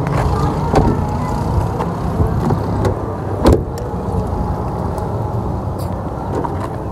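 A Toyota Hilux Vigo's door slammed shut about three and a half seconds in, with a few lighter clicks around it. A steady low engine-like hum runs underneath.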